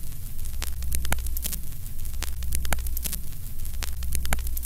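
Old-film countdown sound effect: a steady low hum under crackle and scattered pops like worn film running through a projector, with a soft sweep repeating about once a second in step with the count.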